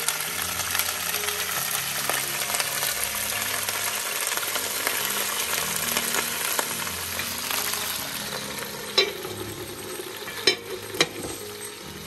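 Leeks frying in oil in an enamelled cast-iron Dutch oven, a steady sizzling hiss. Near the end the sizzle eases off, and three sharp clanks come as the heavy lid is put on the pot.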